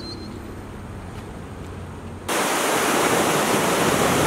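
Low, quiet outdoor rumble with a faint chirp near the start, then, a little over two seconds in, an abrupt switch to a loud, steady rushing of fast-flowing floodwater.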